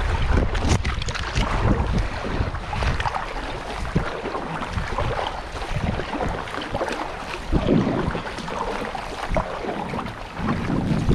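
River water rushing, with irregular splashing and wind buffeting the microphone in low rumbles.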